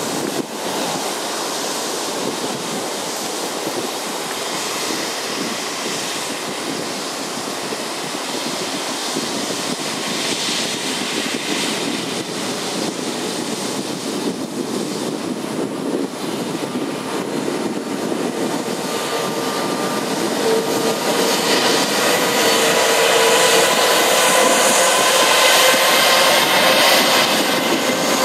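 Airbus A330-200's Rolls-Royce Trent 700 turbofans running at taxi power as the airliner taxis, a steady rushing hiss. About two-thirds of the way through it grows louder and a whine of several steady tones comes in as the jet draws near.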